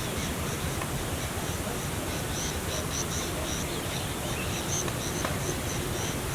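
Small birds chirping: short, high-pitched chirps repeated many times over a steady background hiss.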